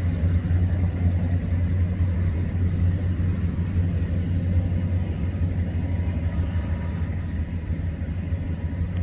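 Steady low diesel engine rumble of a Kubota DC105X combine harvester running while it cuts rice. A few faint high chirps come about three seconds in.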